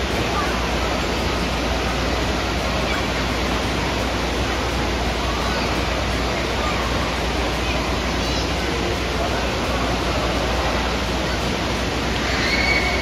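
Indoor wave pool water rushing and breaking without pause, with faint children's voices. A brief high-pitched tone sounds near the end.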